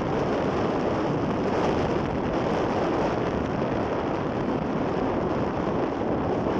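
Steady rushing of wind on the microphone over the low, even running noise of a moving train, with no clear rail clicks.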